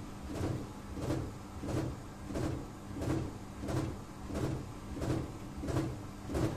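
Edesa front-loading washing machine running, its drum turning at a steady low speed with a swishing thump about every two-thirds of a second over a steady motor hum. The machine has a broken drum spider.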